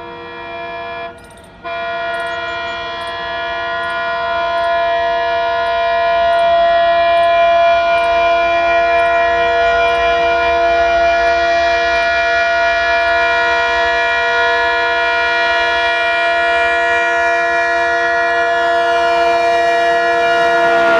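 WDM-3D diesel locomotive's multi-note air horn sounding one long continuous blast, several tones at once, with a short break about a second in. It grows louder as the locomotive approaches, over the rumble of the train.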